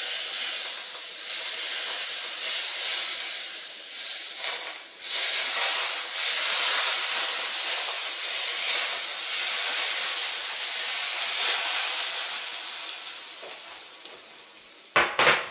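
Smoking-hot vegetable oil poured over raw garlic and spices sizzles, a steady hiss that dies away over the last few seconds as the oil cools. A few sharp knocks come near the end.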